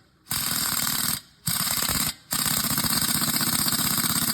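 Impact wrench hammering on a fastener in three bursts, about a second, then under a second, then a longer run of over two seconds, with brief pauses between.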